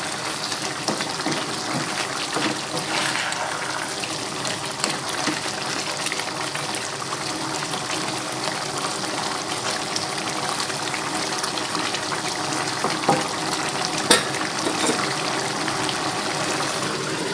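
Bamboo-shoot and chicken curry boiling in a pan, a steady bubbling hiss, while it is stirred with a wooden spatula; a sharp knock of the spatula against the pan near the end.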